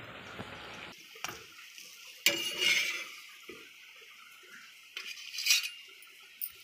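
Steel plates and kitchen utensils clattering as they are handled, loudest a little over two seconds in and again about five and a half seconds in. A steady hiss fills the first second and then cuts off.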